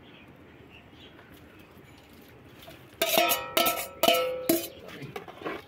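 A steel bowl knocked against the rim of an aluminium cooking pot to empty it: about three seconds in, four quick metallic clanks, each ringing on briefly.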